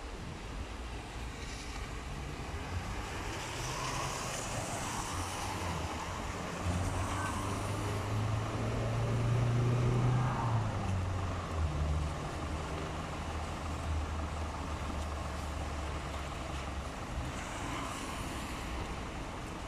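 A city minibus engine running as the bus pulls up to the stop and idles there. The hum swells to its loudest about halfway through and eases off near the end, over a steady hiss of wet street noise.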